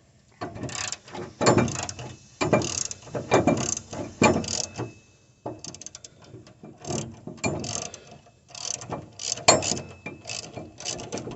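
Socket ratchet clicking in quick bursts, with short pauses, as the 9/16-inch bolts holding a mower deck spindle are turned out. The bolts are already loosened and come out with little effort.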